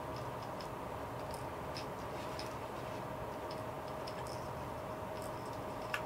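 Light, irregular small ticks and clicks from handling a plastic crankbait and brush while brushing on epoxy, with one sharper click near the end, over a faint steady hum.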